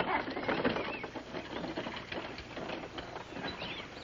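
Horse-drawn wagon pulling away: irregular rattling and hoof clatter, loudest at first and fading. A few short bird chirps are heard.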